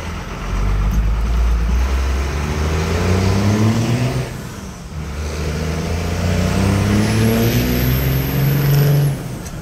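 1995 Dodge Ram's 12-valve Cummins 5.9 L inline-six turbo diesel accelerating hard under load, heard from inside the cab: the engine pitch climbs through one gear, drops at a shift about four and a half seconds in, then climbs again. A high turbo whistle rises over the second pull and fades as it ends.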